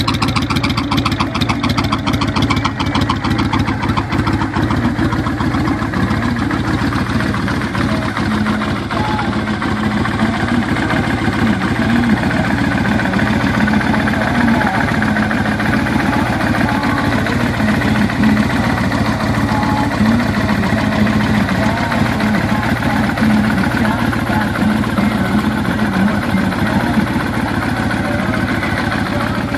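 2004 Kawasaki Nomad motorcycle's V-twin engine idling steadily.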